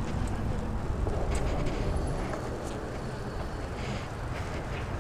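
Steady wind rush and rolling tyre noise from a Super73 R-Series electric bike being ridden over pavement, with a few faint ticks.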